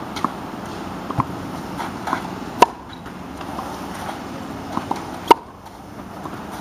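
Tennis racket striking the ball: two sharp hits, about two and a half seconds in and again a little past five seconds, with fainter knocks of the ball in between.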